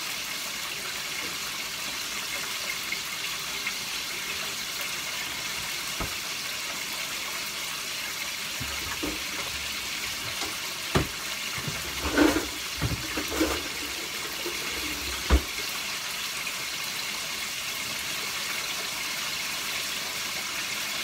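Steady hiss of kitchen background noise, with a few sharp knocks and clatters of things being handled around the middle, the loudest a single knock about two-thirds of the way through.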